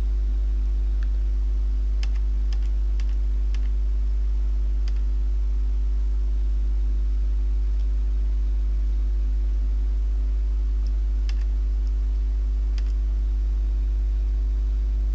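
A steady low hum throughout, with a few faint light clicks in two short clusters, as of calculator keys being pressed during a calculation.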